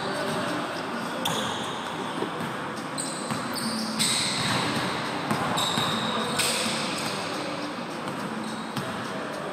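Basketball being dribbled and played on a hardwood gym floor, with several short high squeaks from players' sneakers.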